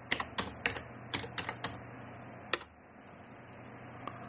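Typing on a computer keyboard: a quick run of about eight keystrokes over a second and a half, then a single louder keystroke about two and a half seconds in, the Enter key that runs the command.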